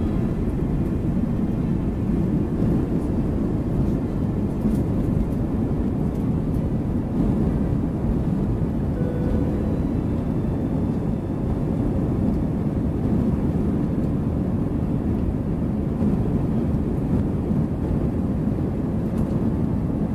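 Jet airliner at takeoff power, heard from inside the passenger cabin as a steady low rumble of engine and airflow noise.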